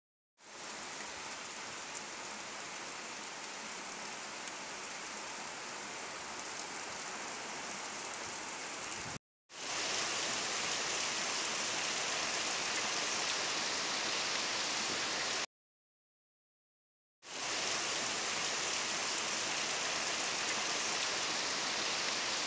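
Steady hiss of heavy rain, broken by a short gap about nine seconds in and a longer silence between about 15 and 17 seconds in.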